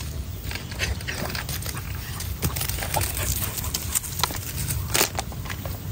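A dog panting close by, with scattered short clicks and knocks over a steady low hum; the sharpest knock comes about five seconds in.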